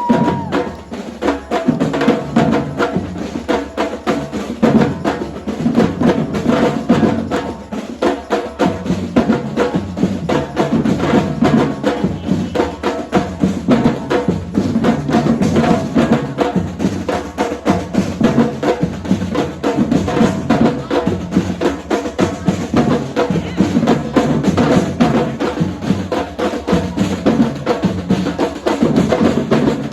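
Brazilian-style drum line playing a fast, dense groove: deep bass drums under rapid snare strokes and a clatter of smaller hand percussion.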